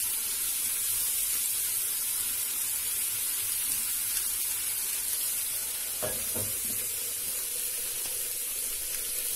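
Chicken breast strips sizzling in hot oil in a cast-iron skillet, stirred with a silicone spatula, with a short clink about six seconds in as a glass lid goes onto the pan.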